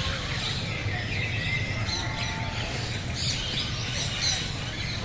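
A chorus of many birds chirping and twittering at once, with short overlapping calls throughout, over a steady low rumble.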